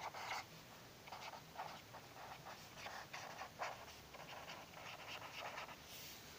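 Pen writing on paper: short, irregular scratching strokes as a line of words is handwritten, faint.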